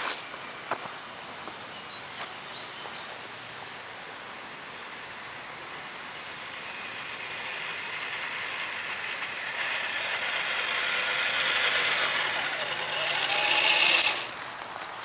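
Radio-controlled Tamiya Toyota Tundra truck approaching, its electric motor and gears whining louder and louder as it nears. The whine peaks as the truck reaches the microphone just before the end, then drops off sharply.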